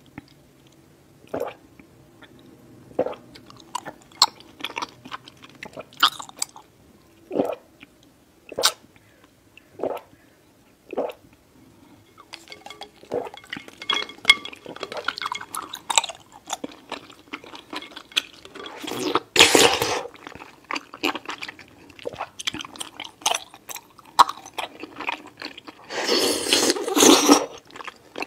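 Close-miked mouth sounds of drinking bubble milk tea: sips through a straw, swallows and chewing of tapioca pearls. They come singly about every second and a half at first, then thicker from about halfway, with two longer, louder noisy stretches later on.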